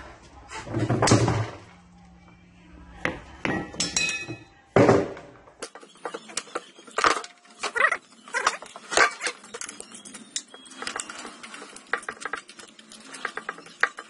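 Heavy knocks and clanks of tools working on a washing machine's concrete counterweight and plastic tub as it is taken apart for scrap, several loud blows in the first half, then quicker, lighter clicks and metallic taps.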